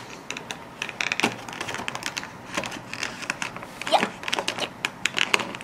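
Small plastic toy pieces clicking and rattling against a plastic storage tray as hands rummage through it, with irregular sharp clicks and crinkles.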